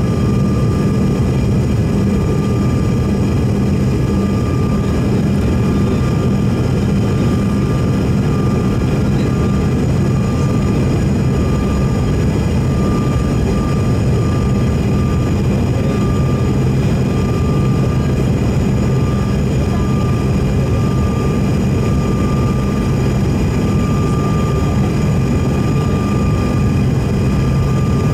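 Steady cabin noise inside a Bombardier CRJ-900LR jetliner on descent: a constant deep rush of airflow and the rear-mounted General Electric CF34 turbofan engines, with a thin steady whine above it.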